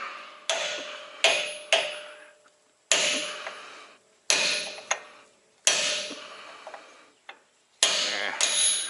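Hammer striking metal, driving a small sleeve into a semi truck's front brake assembly: about eight spaced blows, each ringing out for a second or so.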